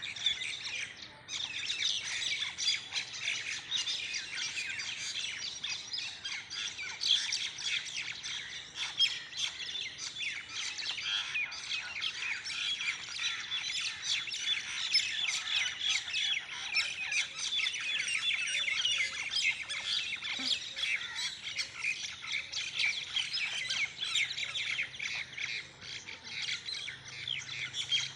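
Birds squawking and chirping in a fight, a dense, unbroken stream of rapid, shrill calls.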